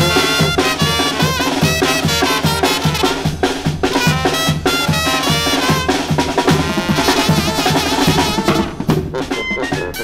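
Zacatecan tamborazo band playing: a sousaphone, clarinet, trumpets and trombone carry the tune over a steady beat from the tambora bass drum with its mounted cymbal and the snare drums.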